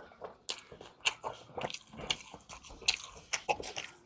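A person eating close to the microphone: irregular wet chewing and mouth smacks with several sharp, crunchy bites.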